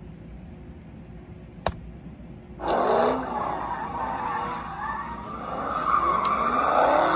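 Quiet room tone with a single sharp click, then about two and a half seconds in a car's tires start squealing loudly over its revving engine as it slides on asphalt, with a wavering pitch that runs on.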